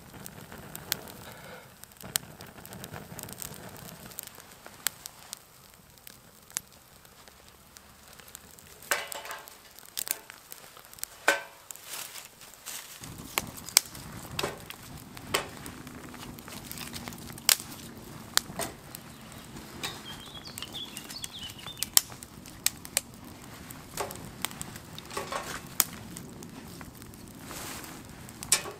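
Twig and birch-bark kindling burning in a steel fire pit, crackling with sharp pops scattered throughout as the fire catches.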